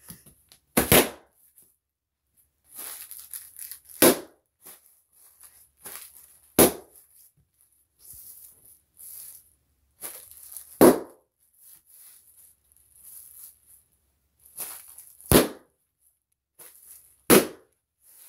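Bubble wrap being stepped on: six sharp pops a few seconds apart, with softer crinkling of the plastic between them.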